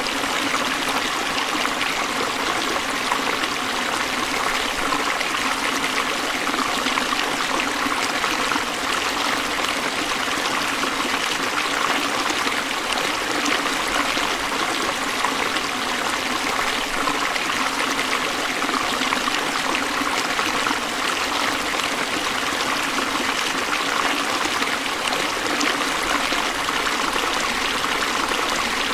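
Shallow water running over rocks: a steady, even rush and trickle.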